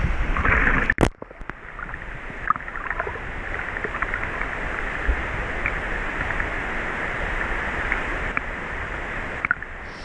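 Water sloshing and lapping against a GoPro held at the water surface while wading, with small gurgles and drip-like ticks. A sharp knock about a second in, after which the sound turns muffled, as if the camera dips into the water, and it clears again near the end.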